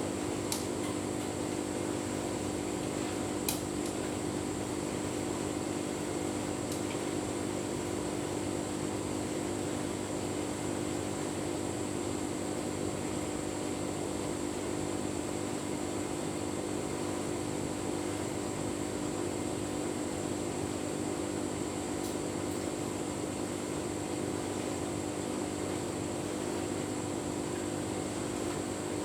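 Tumble dryer running steadily: the motor, drum and fan give a constant hum, with a few faint ticks.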